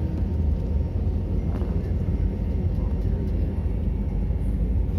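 Steady low rumble of cabin noise inside an airliner on the ground after landing, with the jet engines running at idle.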